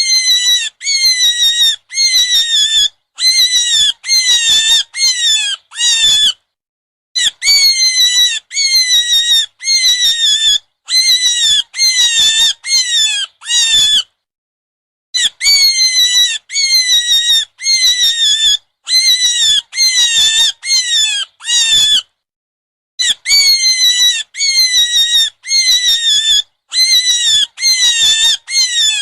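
High-pitched animal squeals, each call falling in pitch. They come in quick groups of four or five, and the groups repeat almost identically every few seconds, like a looped sound clip.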